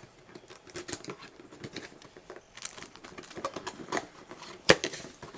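Rustling and scattered light clicks of a taped mystery box being opened and its packaged items handled, with one sharp knock near the end.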